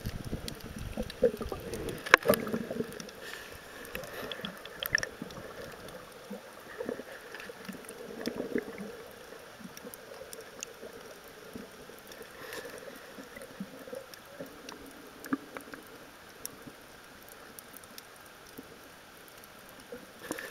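Underwater ambience through a submerged camera: muffled water movement with scattered small clicks and crackles. There is heavier sloshing in the first couple of seconds, just under the surface, and a sharp click about two seconds in.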